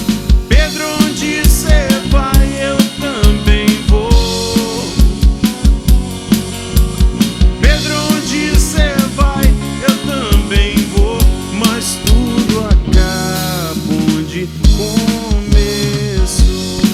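Live band playing a reggae groove without vocals: drum kit with kick drum and snare rimshots keeping a steady beat, bass, and a lead melody line with bending, gliding notes over it.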